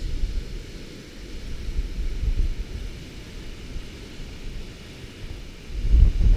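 Wind buffeting the microphone in gusts, a low rumble that eases off and surges again strongest near the end, over a faint even hiss of surf breaking on the rocks below.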